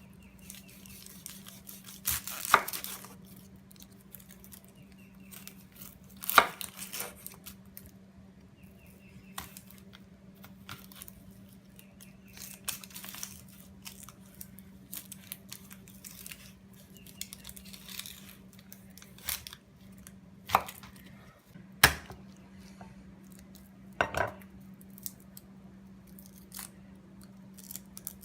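Onion and garlic being peeled and minced by hand: dry papery skins tearing and crackling, with scattered sharp knocks of a knife on a cutting board. A steady low hum runs underneath.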